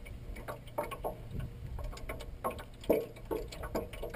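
Spinning reel being cranked to bring in a hooked trout: light, irregular ticks and knocks, a few every second, over a steady low hum.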